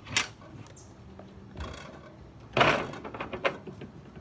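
A few knocks and clicks, with a short, loud scraping rush about two and a half seconds in.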